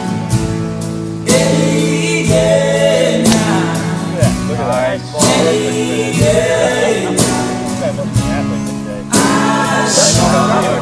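Background song: singing over strummed acoustic guitar.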